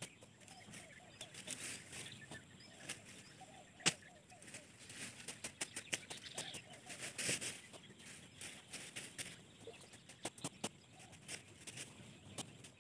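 A hand blade hacking through tall grass and weeds, with irregular sharp chops and the rustle of cut stems being pulled aside.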